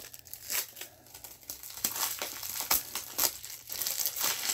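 Plastic wrapping on a pack of BCW toploader card holders crinkling and tearing as it is opened: a run of irregular crackles and rustles.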